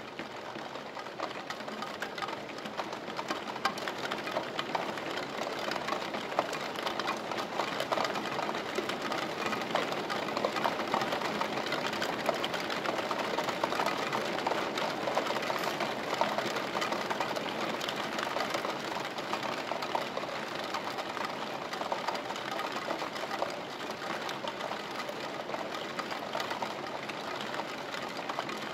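Steady rain, a dense run of fine drop ticks that grows a little louder over the first few seconds and then holds.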